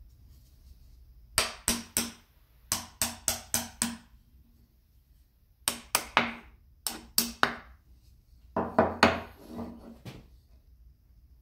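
Small hammer tapping on the iron of an old wooden spokeshave, in quick groups of three to five light blows with a short metallic ring, the last group near the end the loudest.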